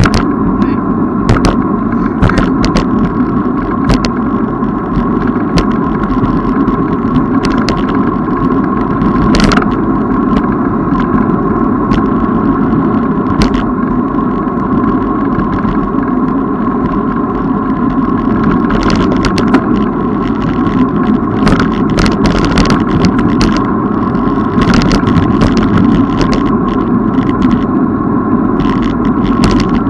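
Riding noise from a moving bicycle: a loud, steady noise with a constant tone running through it, broken by frequent short clicks and knocks.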